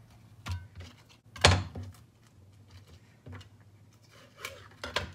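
A handful of dull knocks and thuds from a knife and handled cabbage leaves on a plastic cutting board as boiled cabbage leaves are laid out and trimmed; the loudest comes about a second and a half in, with two more close together near the end.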